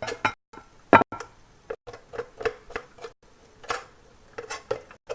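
Kitchen utensils clicking and scraping against a plate and pan in short, irregular knocks, with a sharper knock about a second in.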